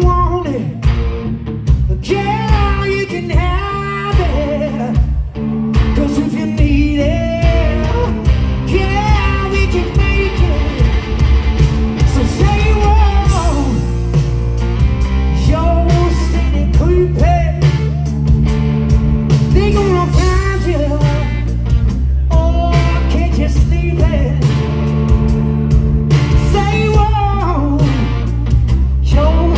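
A rock band playing with a singer, the sung melody gliding over a steady beat and a heavy low end.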